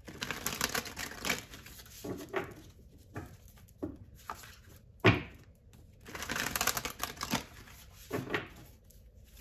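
Tarot cards being shuffled by hand: stretches of rapid card flicking and rustling, with a sharp knock about five seconds in.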